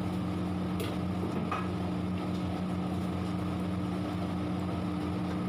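Steady droning hum of commercial kitchen equipment, with two faint clicks about a second in.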